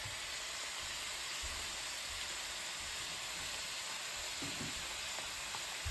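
Vegetables frying in a stainless steel pan, a steady sizzle.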